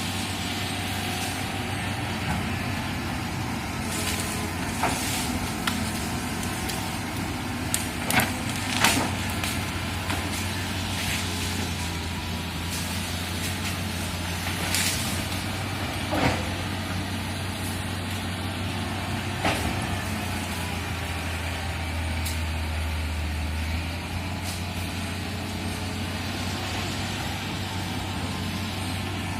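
Excavator's diesel engine running steadily at work, with occasional sharp cracks and knocks, the loudest about eight and nine seconds in.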